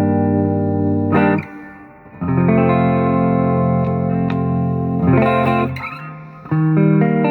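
Electric guitar played through its Oripure Alnico 5 neck humbucker in full humbucking mode, strumming chords and letting each ring for a second or more, with short gaps between them.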